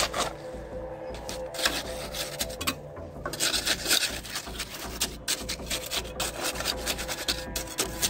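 Steel mason's trowel scraping through wet concrete and against a metal pan as concrete is scooped and pressed into a wooden column form, in repeated irregular scrapes.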